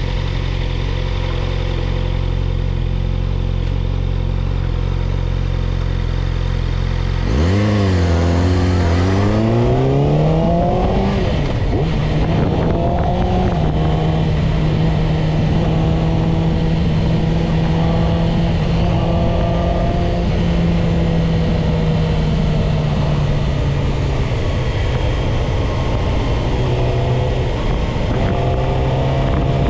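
Yamaha YZF-R6's inline-four engine runs steadily at low revs, then about seven seconds in the revs climb sharply as the bike accelerates away. It then holds a steadier, higher pitch under wind rush, with the revs sagging slowly and climbing again near the end.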